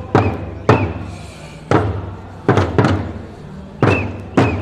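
Handheld frame drums struck with beaters in a slow, uneven marching beat: about seven hits, some in quick pairs, each with a low boom that quickly dies away.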